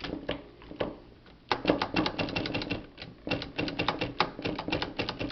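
Antique cast-iron Oliver typewriter clicking: a few single clicks, then two fast runs of clicks, each about a second long, as its mechanism is worked.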